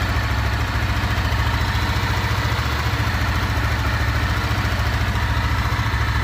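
2025 Honda Sahara 300's single-cylinder engine idling steadily with a noisy mechanical clatter. The owner says this is the bike's normal engine noise and not a fault.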